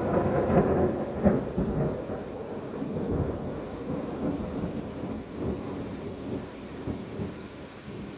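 Thunder rumbling during a rainstorm, loudest in the first two seconds with a sharp crack about a second in, then a lower rumble fading under steady rain.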